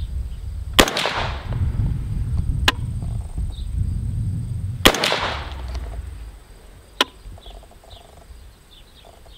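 Two shots from a 5.56 AR-15 (IWI Zion-15) firing 55-grain rounds, about four seconds apart, each ringing out briefly after the crack. Two fainter sharp cracks fall between and after them.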